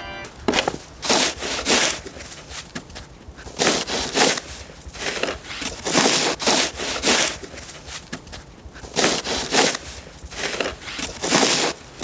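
Two snow shovels scraping and pushing snow across a paved driveway, in irregular overlapping strokes.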